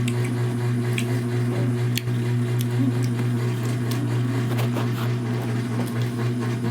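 A steady low machine hum with faint scattered clicks.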